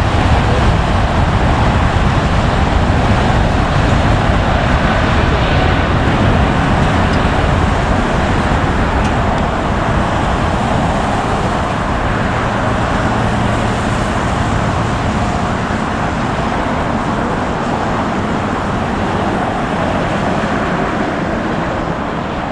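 Jet engines of a twin-engine widebody airliner at takeoff thrust: a steady, heavy roar through the takeoff roll and climb-out, slowly fading as the aircraft moves away.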